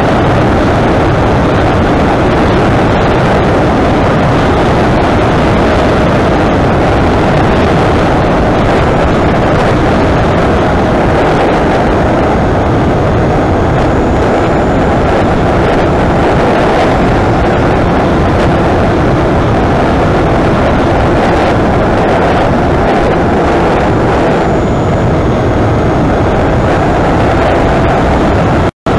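Loud, steady rush of airflow and propeller noise on the onboard camera microphone of a flying wing in flight, with a faint steady whine from its brushless electric motor. The sound drops out for a split second near the end.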